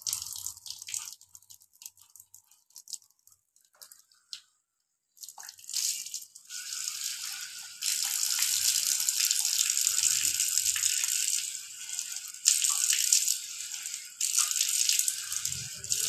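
Water from an outdoor wall tap splashing onto concrete as hands wash under it. First come a few scattered drips and splashes, then about five seconds in a steady stream of running water starts, dipping briefly now and then.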